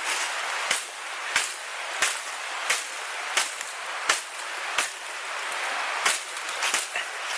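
Camillus Carnivore X machete chopping into wood: about ten sharp strikes, one every two-thirds of a second, with a short pause past the middle. Steady rushing water lies underneath.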